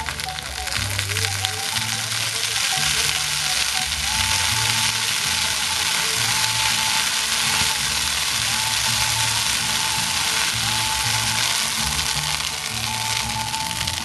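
Fireworks crackling, a dense continuous sizzling crackle that swells in the middle, over music with a steady bass line and melody.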